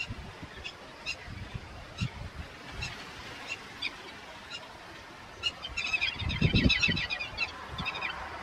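Birds calling in short, repeated notes about twice a second, rising to a dense burst of chattering calls a little past halfway, with a low thud during the burst.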